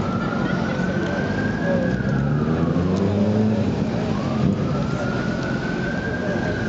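Emergency vehicle siren wailing, slowly rising and falling twice, over the steady noise of city traffic.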